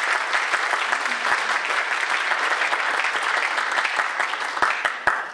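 Audience applauding, thinning to a few separate claps near the end.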